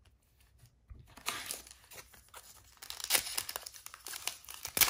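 Foil trading-card pack crinkling in the hands and being torn open. It starts about a second in and is loudest near the end.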